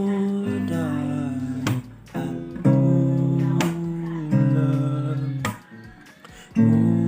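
Acoustic guitar strumming held chords in an instrumental passage of a song, the chord changing every second or two, with brief pauses about two and six seconds in.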